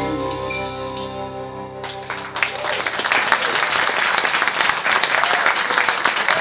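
A live band's last held chord, with a bright keyboard tone on top, dies away about two seconds in, and the audience then breaks into applause that carries on to the end.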